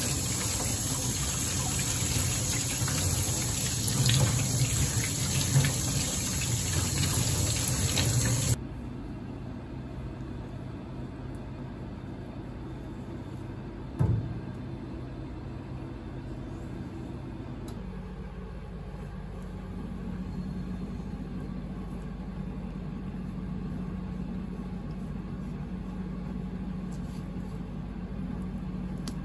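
Kitchen tap running hard as a squid is rinsed under the stream over a stainless steel sink, the water shut off about a third of the way in. A single sharp knock in the middle, then a low steady hum.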